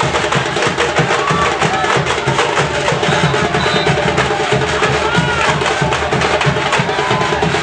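Loud live percussion music with an even, fast beat: low drum strokes under sharp, clicking wood-block-like hits, and a few short gliding tones over the top.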